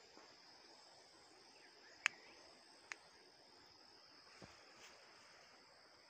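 Faint steady high-pitched drone of insects. About two seconds in come two sharp clicks a little under a second apart, the first the louder.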